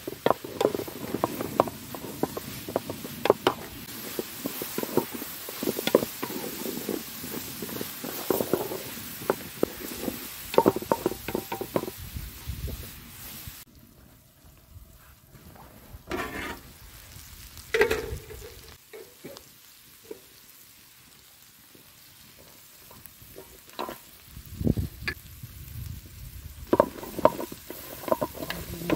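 Wooden spatula scraping and stirring chicken frying in a large aluminium pan over a wood fire, over a steady sizzle. About halfway through the sizzle drops suddenly to a muffled hush as the pan is covered, with a few scattered knocks; near the end the stirring and sizzling start again.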